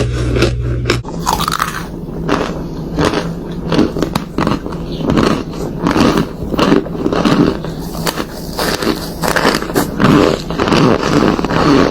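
Close-miked biting and chewing of something crunchy: a quick, uneven run of sharp crunches. A low hum under the crunches stops about a second in.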